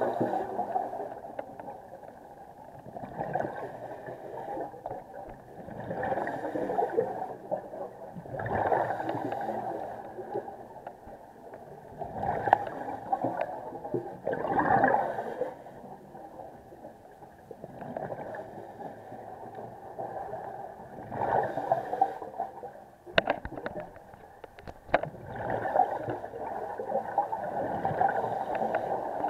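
A scuba diver's exhaled breath bubbling out of the regulator underwater, a muffled gurgling burst every three seconds or so in a steady breathing rhythm. A few sharp clicks come near the end.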